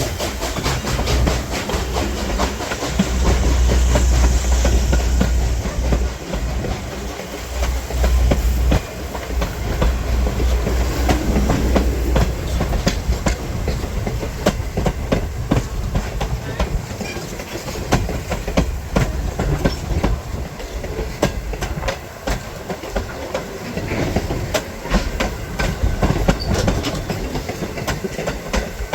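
Steam-hauled train rolling past, its wheels clicking steadily over the rail joints over a low rumble that is heaviest in the first third.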